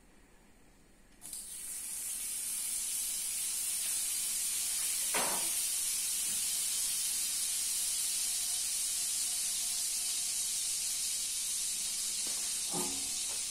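Butter sizzling as it melts in a hot nonstick frying pan: a steady high hiss that starts suddenly about a second in when the butter hits the pan. A light click sounds twice, once mid-way and once near the end.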